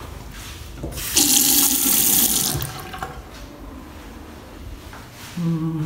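Tap water running into a ceramic bathroom washbasin. It starts about a second in, runs loudly for about a second and a half, then fades away.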